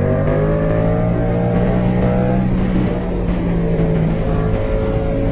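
Yamaha MT-07's 689 cc parallel-twin engine, fitted with an aftermarket full exhaust system, pulling under way. The pitch rises slowly for about two and a half seconds, then eases lower and holds steady, over the rush of wind and road noise.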